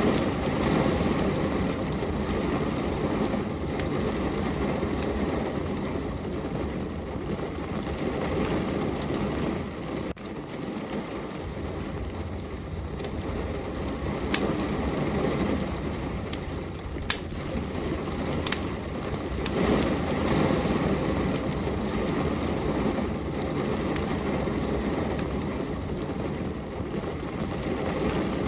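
Steady rain falling, with a wood fire crackling in the fireplace: a sharp pop stands out every few seconds.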